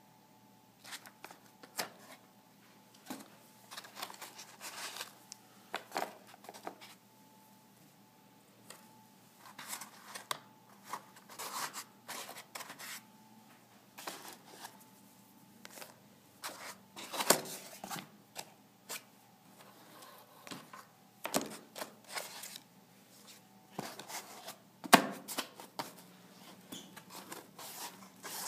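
Irregular clicks, taps and rustles of test leads and needle-probe contacts being handled in a foam-lined plastic case, with a faint steady hum underneath; the sharpest knocks come about 17 and 25 seconds in.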